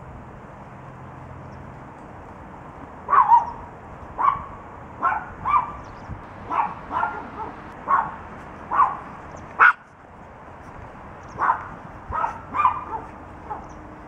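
Chihuahua puppies barking: a string of short, high yaps, about one every half-second to second, starting about three seconds in, with a short break about two-thirds of the way through.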